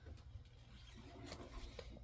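Faint rustling and a few light taps of comic books being handled and set down, over a low steady room hum.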